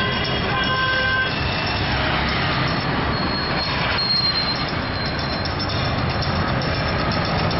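Street traffic: vehicle engines running with a steady low rumble, and a thin high-pitched whine for a couple of seconds near the middle.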